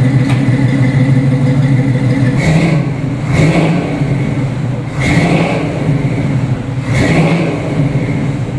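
1972 Pontiac GTO's rebuilt four-barrel V8 with dual exhaust, running at a steady idle and blipped up in revs about four times, briefly each time, from a little over two seconds in.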